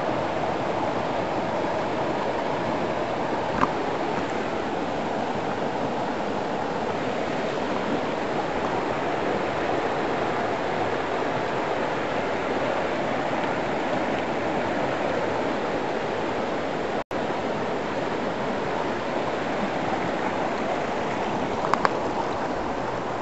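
Steady rushing of a flowing creek.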